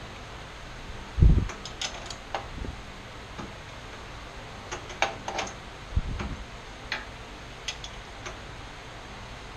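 Hand tools and metal parts clicking and clinking as a Wilton band saw is taken apart, irregular light metallic clinks with two dull knocks, about a second in and around six seconds. A steady hum runs underneath.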